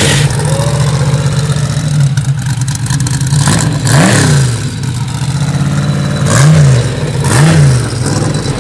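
Custom off-road race buggy's engine running at a steady idle, blipped three times: once about halfway, then twice near the end, each a quick rise and fall in revs.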